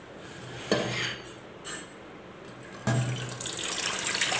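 A knock of stainless steel vessels being handled, then, about three seconds in, water pouring steadily from a steel vessel into an empty stainless steel pot, splashing on its bottom.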